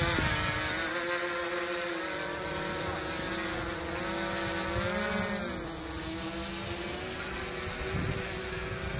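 GoPro Karma quadcopter hovering overhead, its propellers giving a steady multi-tone buzzing whine. About five seconds in, the pitch rises and then drops back as the motors speed up briefly.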